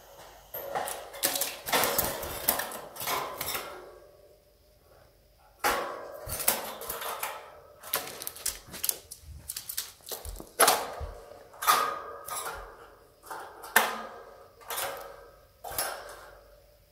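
Wire birdcage rattling and clinking as its wire top is handled and tilted up off the plastic base: irregular metallic clicks with a light ring, in two spells with a short lull between.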